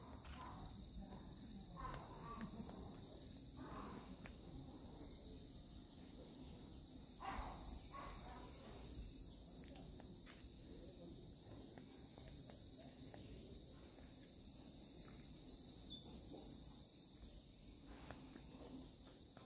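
Faint, steady high-pitched drone of insects in forest undergrowth, with short bird chirps now and then and a few soft footsteps on a dirt path.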